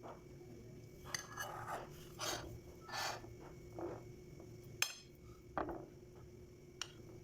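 Hands shaping wet glutinous rice dough into flat pieces: soft, irregular rubbing and scraping, with a few light clicks of a plate or utensil, the sharpest about five seconds in. A faint steady hum runs underneath.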